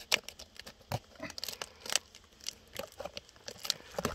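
A knife cutting a tough bracket fungus away from a tree stump: an irregular run of sharp cracks and tearing crackles, several a second.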